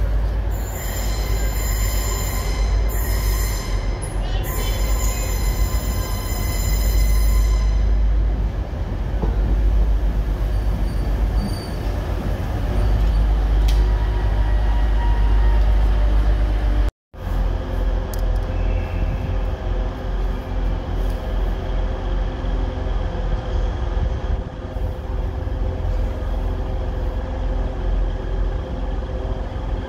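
A passenger train running into the platform, its wheels squealing high and loud for the first eight seconds over the rumble of the train rolling past. After a sudden cut about 17 seconds in, a diesel multiple unit's engine runs with a steady hum.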